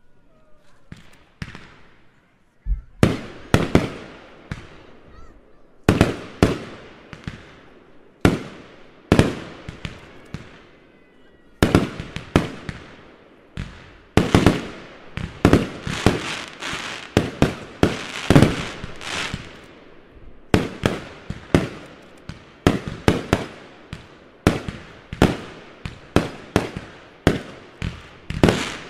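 Fireworks display: after a few faint pops, loud aerial shell bursts start about three seconds in, each bang trailing off in crackle. From about twelve seconds on the bursts come thick and fast, in a near-continuous barrage.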